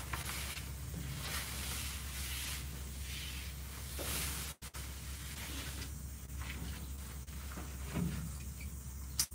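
Camouflage hammock fabric rustling and swishing as it is gathered up and packed away, with a low knock about eight seconds in and a sharp click near the end.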